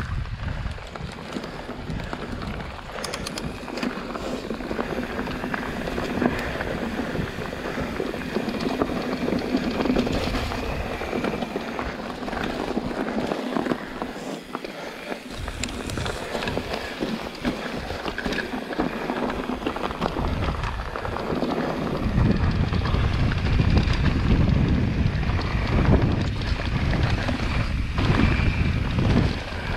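Wind rushing over the microphone with the rattle and crunch of a Scott Ransom full-suspension mountain bike's tyres and frame rolling fast down a dry, leaf-strewn dirt trail. The low wind rumble grows stronger about two-thirds of the way through.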